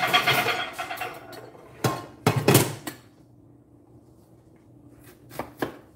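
Metal cookware being handled: pots and utensils knock and clatter, loudest at the start and again about two and a half seconds in, then a couple of light clicks near the end.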